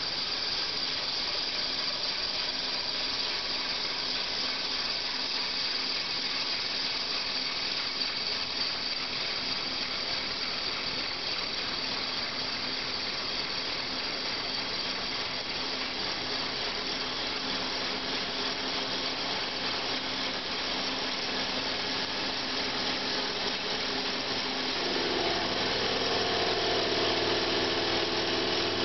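CNC mill spindle and boring bar rough-boring a cylinder of an aluminium Subaru EJ20 block for a flanged sleeve: a steady machining hum with a cutting hiss and a few held tones. Near the end, new steady tones join and it gets slightly louder.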